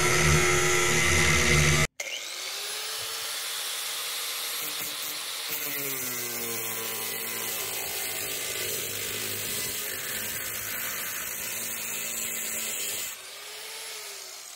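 Chicago Electric handheld electric angle grinder running with its disc against the rusty sheet metal of a truck cab corner, grinding away rust to find sound metal. There is a brief break about two seconds in. Near the end the grinding stops and the motor winds down.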